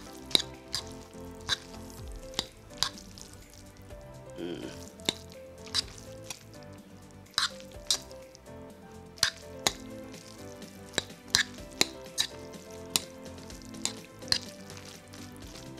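Metal fork stirring and lifting sauced instant ramen noodles in a ceramic bowl: wet, sticky noodle sounds with irregular sharp clinks of the fork against the bowl.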